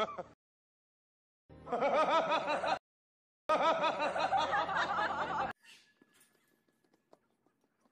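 Edited-in comic laughter sound effect: two bursts of giggling, a second or two each, with dead silence around them, then faint outdoor ambience.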